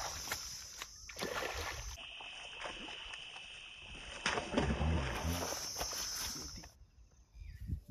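Water splashing as a hooked fish is hauled out of shallow river water, and the landed fish flapping and thumping on grass. The sound changes abruptly several times, as one short clip cuts to the next.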